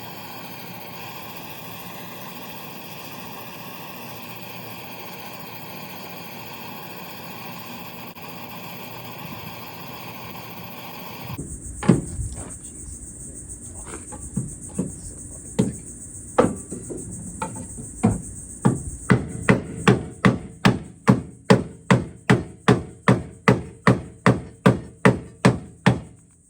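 A steady rushing noise while the sheet metal is heated, cutting off about eleven seconds in; then a hammer strikes the steel rear quarter panel, a few scattered blows at first and then a steady run of about two blows a second, beating the crumpled panel back out. Crickets chirp steadily underneath.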